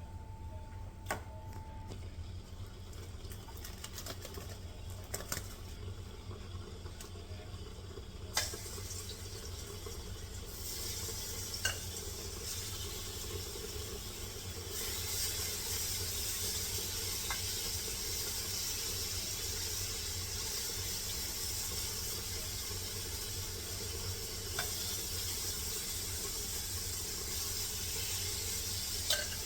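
Seasoned chicken strips sizzling in hot oil in a skillet, over a steady low hum. The sizzle starts with a click about eight seconds in, grows louder as more pieces go in around ten and fifteen seconds, and stays steady, with a few clicks.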